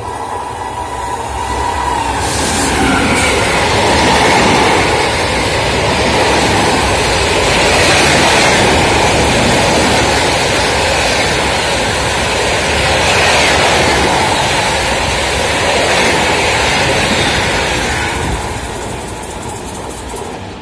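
Express passenger train running through a station at speed: the rush of wheels on rails builds over the first few seconds, stays loud and steady as the coaches pass, then fades near the end as the train recedes.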